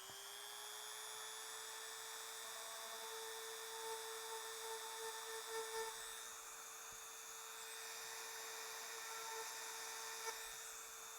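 Dremel rotary tool running at a steady high speed, a thin whine held at one pitch, drilling out an air bubble in cured resin still in its mold. For a couple of seconds near the middle the whine wavers and grows louder as the bit cuts.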